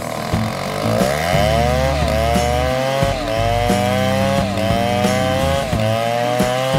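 Cartoon chainsaw sound effect revving over and over, each rev a rising whine that drops back, a little more than once a second. Background music plays underneath.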